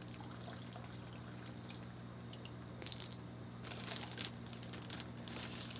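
Water poured from a plastic specimen container into a plastic fish bag, faint, with a few short crinkles of the bag about three and four seconds in, over a steady low hum.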